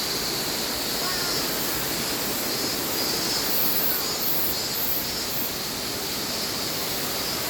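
Steady rushing of water at a constant level.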